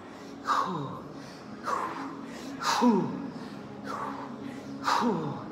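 A man's hard, forceful exhalations during push-ups: five short breath bursts, about one a second, one per repetition. Each carries a brief grunt that falls in pitch. This is the labored breathing of sustained effort near the end of a 300-push-up set.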